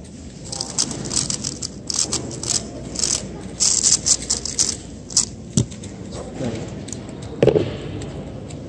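Plastic clicking and rattling of a Valk 2M 2x2 speed cube being handled, in quick clusters over the first few seconds, with two dull knocks on the mat later on, the louder near the end; a murmur of voices runs underneath.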